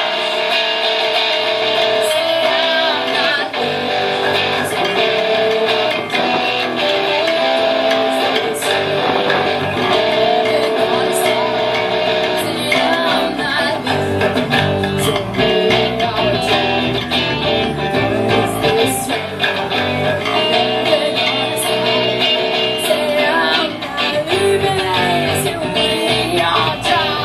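Live band of electric guitar and electric bass guitar playing a rock song without a pause.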